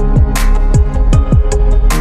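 Background electronic music with a steady beat: deep kick drums that drop in pitch several times a second, and a sharp snare-like hit twice.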